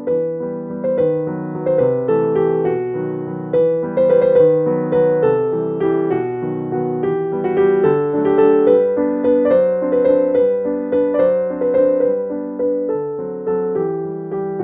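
Background piano music, a steady run of notes at an even, gentle pace.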